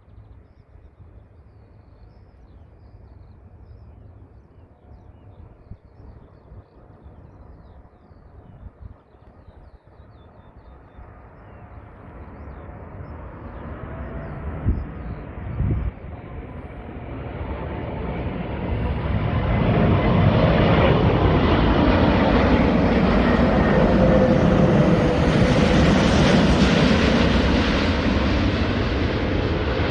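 Airbus A380 jet engines approaching and passing low. The sound builds from a distant rumble to a loud, steady jet roar about two-thirds of the way in, with whining tones that slowly fall in pitch as it goes by.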